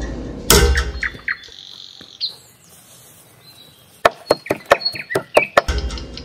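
Birds chirping, with a heavy thud about half a second in and a quick run of sharp knocks near the end.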